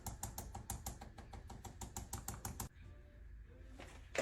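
Rapid, even clicking, about eight clicks a second, stops about two and a half seconds in. Near the end comes a single sharp crack, the loudest sound, from a chiropractic adjustment thrust.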